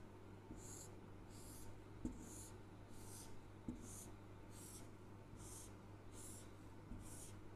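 Marker pen drawing short strokes across a whiteboard: a faint swipe about every three-quarters of a second, as the segment lines are ruled one after another. There are two light knocks of the pen on the board, about two seconds and three and a half seconds in.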